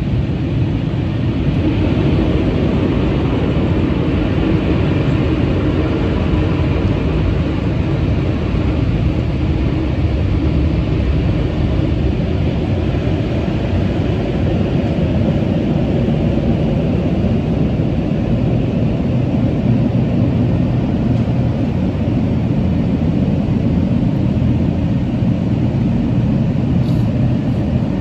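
Automatic car wash running over the car, heard from inside the cabin: a loud, steady rushing noise.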